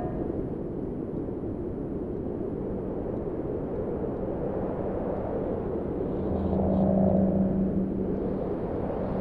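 A low, steady rumbling drone with a mechanical hum that comes in a couple of seconds in and swells louder around the middle, then eases back.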